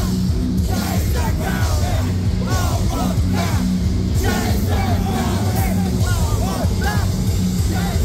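Metalcore band playing live at full volume: heavily distorted electric guitars, bass and drums, with shouted vocals over the top.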